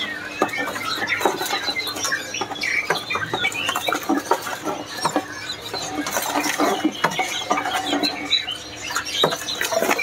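Many caged songbirds chirping and calling over one another, with frequent sharp clicks and rustles of birds moving about in their cages.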